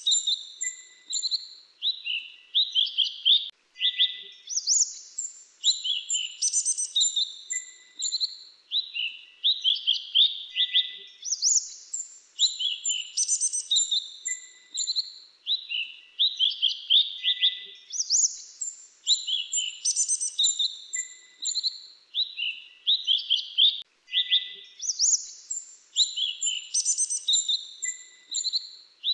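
Grey-chinned minivet song: clusters of rapid, thin, high chirps and trills. The same phrase pattern comes round again every several seconds.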